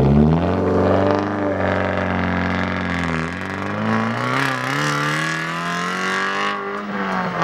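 Mazda2 B-Spec race car's 1.5-litre four-cylinder engine, fitted with a cat-back exhaust, accelerating hard away. The engine note climbs, drops at a gear change about three seconds in, then climbs again before falling away near the end.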